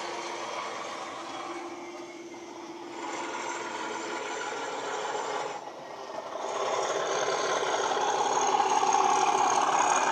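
Class 37 diesel engine sound played by an ESU LokSound hifi DCC sound decoder through a model locomotive's speaker. The engine runs steadily, dips briefly about two seconds in and again near six seconds, then grows louder as the model approaches.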